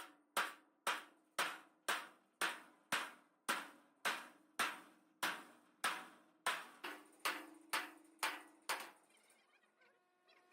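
Hammer strikes on thick steel plate, about two a second, each hit ringing briefly, hand-forming the plate's curve. The strikes stop near the end.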